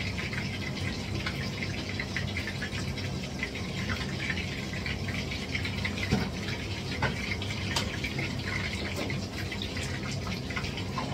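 Food frying in oil in a pan, sizzling and crackling steadily, with a few light clicks around the middle.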